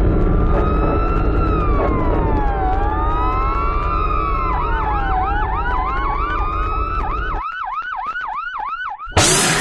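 Siren sound effect in a dance-music mix: a slow rising-and-falling wail over the beat that turns into a fast yelp of about three sweeps a second. Near the end the beat drops out, leaving the siren alone, and a loud burst of noise follows just before the end.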